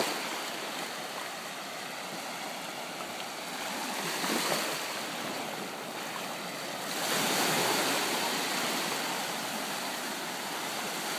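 Ocean surf washing up a beach in a steady hiss, swelling about four and a half seconds in and again from about seven seconds.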